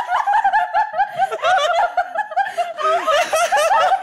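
People laughing hard: a continuous run of rapid, high-pitched giggles.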